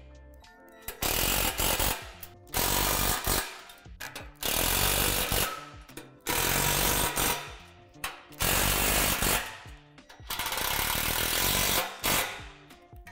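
Cordless power driver running in six bursts of one to two seconds each, driving bolts into a steel-tube playset frame. Soft background music sits in the gaps.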